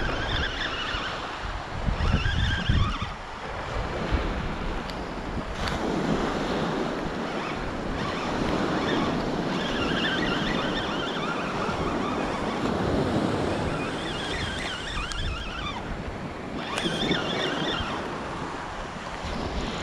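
Surf breaking and washing up a beach, with wind buffeting the microphone in gusts, strongest about two to three seconds in.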